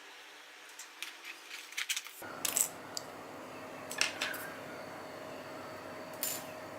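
Small Phillips screwdriver and tiny screws clicking and ticking against a smartphone's metal internal frame, a few light scattered taps and then several sharper clinks as screws are worked out. A faint steady hum comes in about two seconds in.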